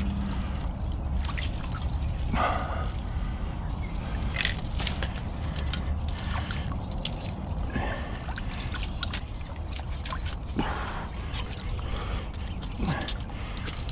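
Shallow muddy water sloshing and dripping as hands work in it, with many sharp clicks and snaps of sticks.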